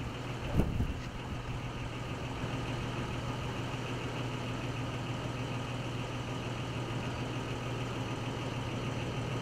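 A vehicle engine idling steadily, a low even hum, with one brief knock about half a second in.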